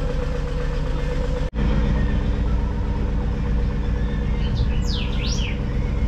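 A vehicle engine idling steadily, with a few quick high bird chirps about five seconds in.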